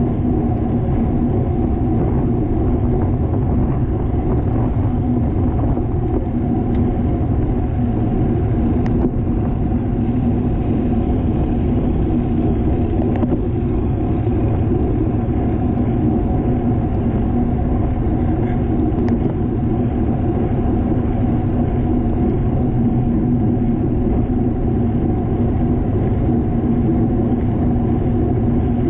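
Wind rushing over the microphone of a camera riding on a racing bicycle at speed: a steady, even rumble that never lets up.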